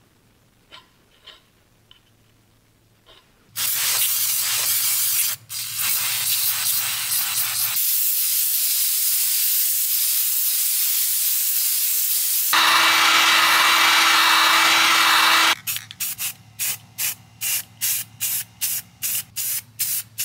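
Spray paint hissing as black semi-gloss is sprayed onto refurbished parking-brake brackets. A few faint clicks come first, then long continuous passes from about three and a half seconds in. Near the end it switches to a quick run of short bursts, about two a second.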